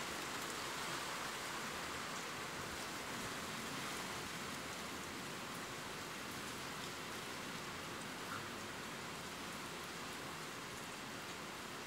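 Steady rain falling, an even hiss with faint scattered patters.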